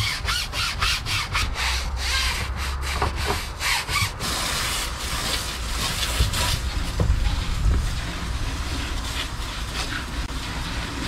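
A deck brush scrubbing a boat's non-skid fiberglass deck in quick, even strokes, about three a second. About four seconds in, this gives way to the steady hiss of a garden hose spraying water across the deck to rinse off the cleaner.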